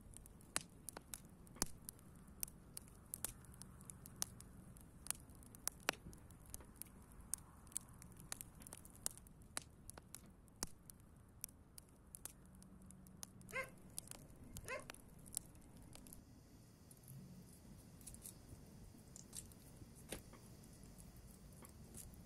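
Wood fire crackling faintly, with irregular sharp pops and snaps about once or twice a second, and two short squeaks a little past the middle.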